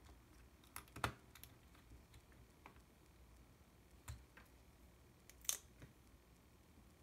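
Scattered small clicks and taps of a precision screwdriver and tiny screws against the plastic body of a Yashica T4 compact camera as its screws are taken out. The clicks are sparse and irregular, the sharpest about a second in and again about five and a half seconds in.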